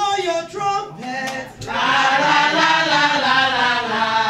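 A group of women singing a chant-like song together. It thins briefly about a second in, then comes back fuller and steady.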